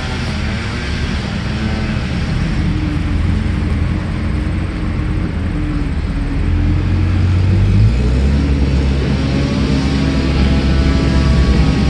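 An engine running steadily, its low hum stepping up in pitch about eight seconds in.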